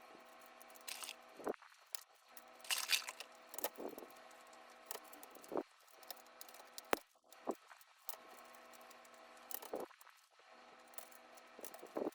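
Plastic keycaps being handled and pressed onto a mechanical keyboard's switches: irregular sharp clicks and light rattles, with a few short rustles.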